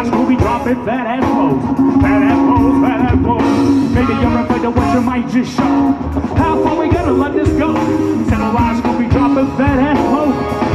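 Live band playing loudly, with a horn section over electric guitar, bass and drums.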